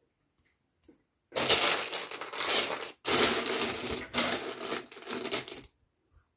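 Loose plastic LEGO bricks clattering and rattling as hands rummage through a pile of pieces. It starts just over a second in, breaks off briefly about halfway, then stops shortly before the end.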